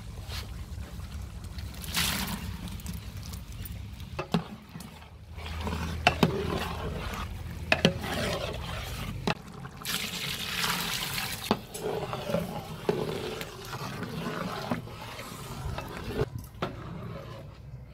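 A long metal ladle stirs and scrapes a large aluminium pot of bubbling tomato masala as green peas and mushrooms go in, with several sharp knocks of the ladle against the pot.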